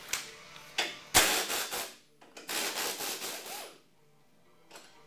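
Hand work on the mounts of an ATV's rear grab bar: a few knocks, then two stretches of scraping and rubbing, each about a second long, as the parts are worked loose.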